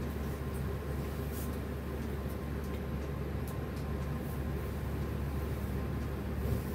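Faint rustling of a silk saree being handled and held up, over a steady low hum.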